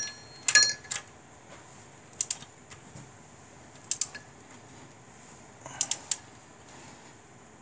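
Torque wrench on cylinder-head bolts: sharp metallic clicks, the first with a short ring, then single and paired clicks every second or two as the head bolts are tightened in sequence.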